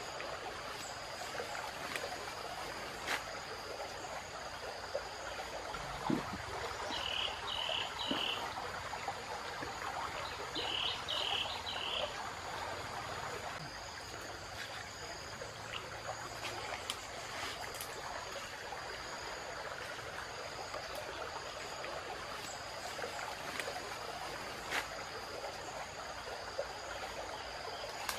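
Steady rush of a forest stream under a constant high insect drone, with two short bursts of chirping calls about seven and eleven seconds in. Scattered snaps of twigs and brush are heard as someone steps through the undergrowth.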